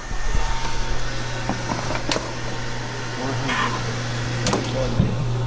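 Microwave oven running with a steady low hum, with a few light clicks and a short rattle about halfway through.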